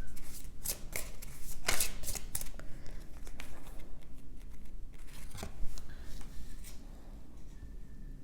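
A deck of cards being shuffled and handled: a run of quick papery swishes and flicks that thins out after about six seconds.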